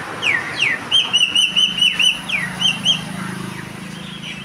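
A bird calling: a few quick downward-sweeping whistles, then a rapid string of short, repeated chirps for about two seconds.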